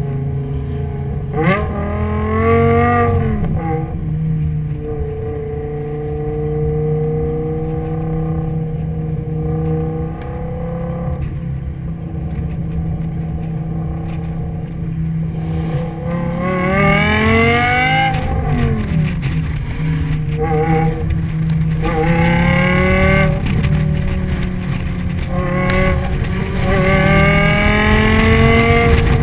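Car engine pulling up through the revs several times, its pitch climbing and then dropping back at each gear change, with a steady cruising drone and tyre and road noise in between.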